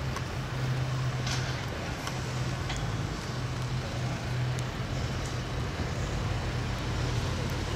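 A steady low mechanical hum over an even haze of outdoor background noise, with a few faint clicks.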